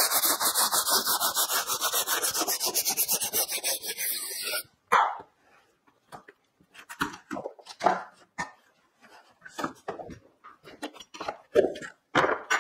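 Quick back-and-forth strokes of a hand sanding block rubbing the fuzz off the freshly cut edge of a hardboard panel, about five strokes a second, stopping suddenly about four and a half seconds in. After that come scattered light knocks and taps as the cut-out panel is handled and lifted off the bench.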